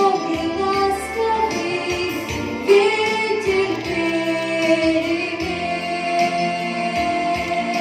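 Song with a backing track and a young girl singing, holding long notes in the second half.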